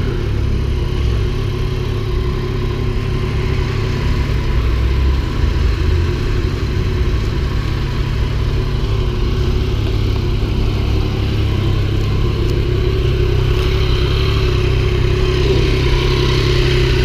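Motorcycle engine running steadily at low revs, low-pitched and unbroken.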